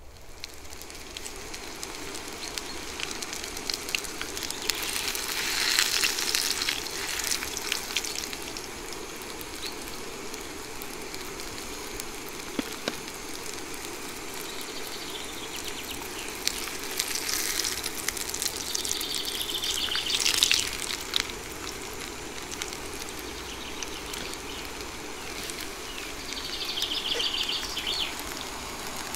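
Hamburger patty sizzling in hot fat in a camping frying pan over a gas burner, a steady sizzle full of small spitting crackles. It swells louder about five seconds in, again around eighteen to twenty seconds, and briefly near the end.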